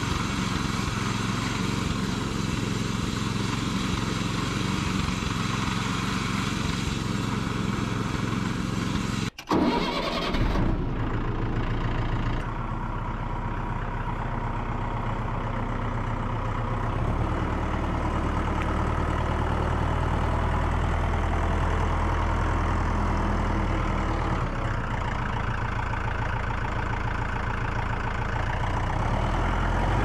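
Small engine of a portable bandsaw mill running steadily, then, after an abrupt break about nine seconds in, a compact tractor's engine running as the tractor drives with its loader grapple raised. The tractor's low engine note grows heavier about halfway through.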